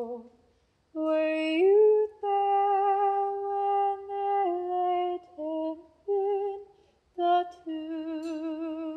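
A solo female voice singing a slow melody unaccompanied, holding long notes with vibrato in phrases broken by brief pauses.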